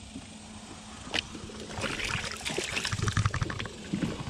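Water trickling and splashing against a fishing kayak, with a single knock about a second in and a quick run of splashy ticks in the middle.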